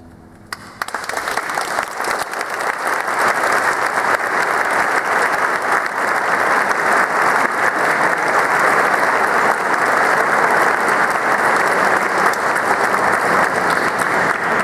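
Concert audience applauding: the clapping breaks out about half a second in, as the last chord of the music dies away, then swells over the next couple of seconds and holds steady.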